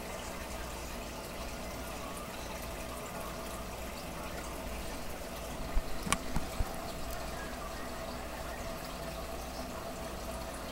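Fish tank water trickling and bubbling steadily under a faint steady hum, with a few small sharp clicks about six seconds in.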